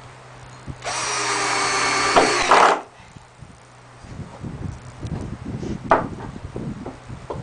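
A power drill runs for about two seconds with a steady motor whine, getting louder just before it stops. After it come light knocks and rattles of wood being handled, with one sharp click.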